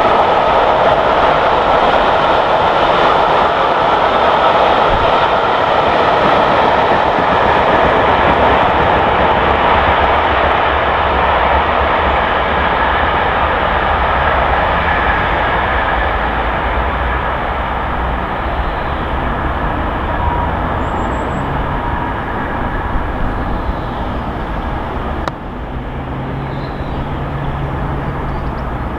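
Passenger coaches of a steam-hauled express train rolling past at speed, the noise of wheels on rail slowly fading as the train draws away, with a sudden small drop in level near the end.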